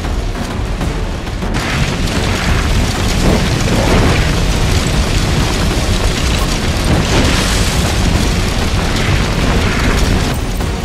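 A loud, steady rumbling noise with a heavy low end and a hiss on top, used as a dark soundtrack drone.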